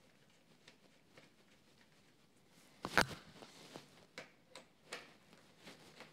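Small metal clicks and ticks as a threaded bar-end insert is screwed into a motorcycle handlebar end by hand and then turned with a long Allen key. One louder metallic knock comes about three seconds in, followed by a few sharper clicks as the key works the insert.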